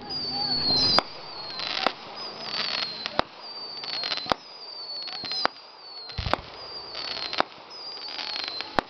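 Aerial fireworks going off: sharp bangs roughly every second, with high whistles that fall in pitch and bursts of crackle between them.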